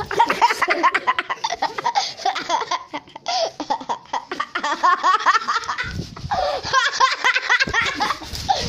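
Kids laughing hard in rapid, high-pitched bursts, breaking off briefly about six seconds in, with rustling and knocks from the camera being handled.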